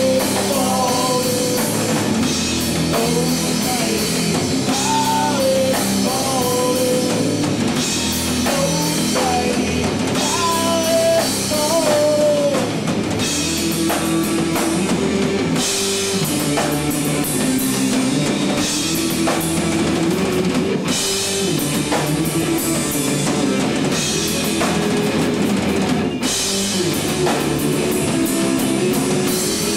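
A rock song played on drum kit and guitars. A lead melody wavers over the first twelve seconds or so, and then the band goes into a fuller passage with brighter cymbals.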